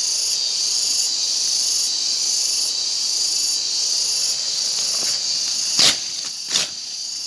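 Insects shrilling in a loud, steady, high-pitched drone, with a second, higher layer that switches on and off about once a second. Two sharp knocks come near the end.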